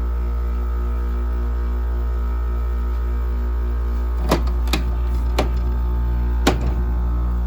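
Small window air conditioner running, its compressor giving a loud, steady low hum. Four sharp knocks in the second half, in keeping with the compressor making the unit rattle.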